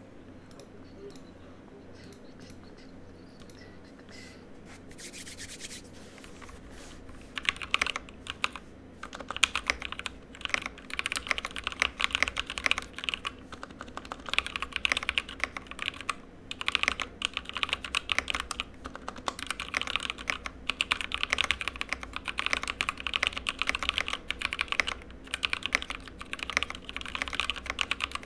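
Typing on a GK61 mechanical keyboard with Kailh Cream linear switches and thin ABS keycaps: a dense run of keystroke clacks with short pauses. The typing starts about seven seconds in, after a few faint clicks.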